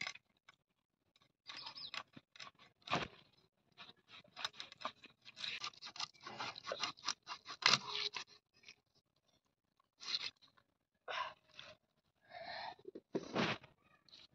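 A whole rohu fish being cut on a bonti's upright curved blade, through gills, fins and the bone of the head: irregular crunching and scraping in bursts with short pauses, thickest around the middle.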